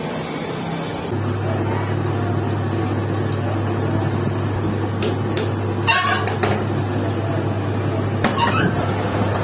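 Steady low hum of the lathe's electric motor, coming on about a second in. Over it, sharp metal clicks and clinks as a metal bushing is set into the lathe's three-jaw chuck and the jaws are closed on it: a few around the middle and a few more near the end.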